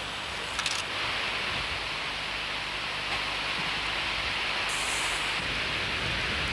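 Steady rushing hiss of flowing river water, with one faint click a little under a second in.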